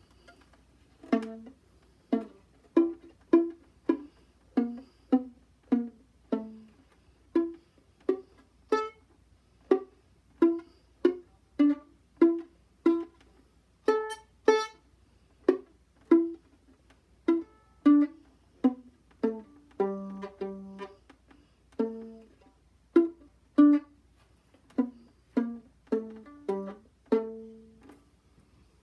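Violin played pizzicato: a slow tune of single plucked notes, about one or two a second, each starting sharply and ringing only briefly.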